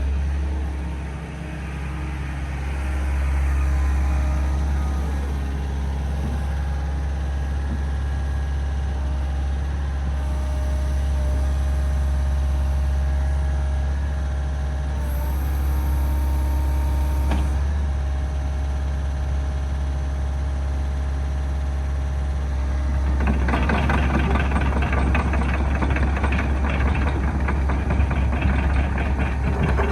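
Doosan DX140LCR-5 excavator's diesel engine running steadily with a deep hum. About two-thirds of the way through, a louder, rough, fast-rattling noise joins it and keeps going.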